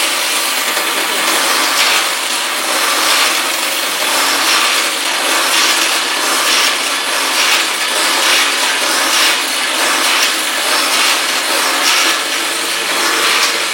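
Electric drill machine boring holes in bamboo cage pieces. Its loud, steady noise swells and eases over and over as each piece is drilled.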